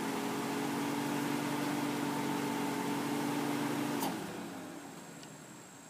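Car's power window motor humming steadily as it drives the driver's door glass up, stopping with a click as the glass closes about four seconds in, then dying away.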